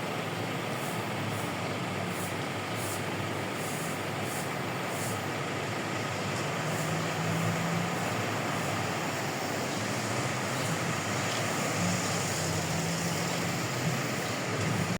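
Steady road traffic noise from passing motor vehicles, with a low engine hum that swells about halfway through and again near the end.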